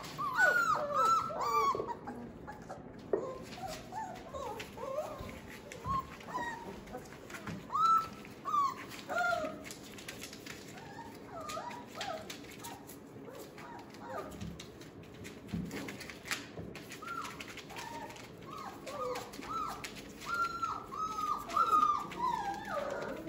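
Four-week-old Australian Labradoodle puppies whining and yelping in short, high, arching calls, in clusters near the start, about eight seconds in and again near the end.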